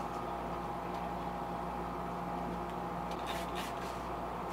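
A steady motor hum with a fixed tone. A handful of quick scratchy sounds come about three seconds in.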